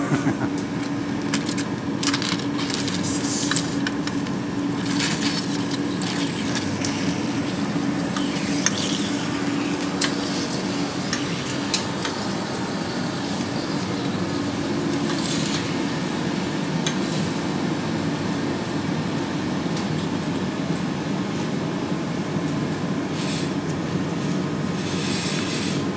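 Steady hum of projection-booth machinery with a constant low tone, and scattered clicks and metallic clinks as the 35 mm film platter and its fittings are handled.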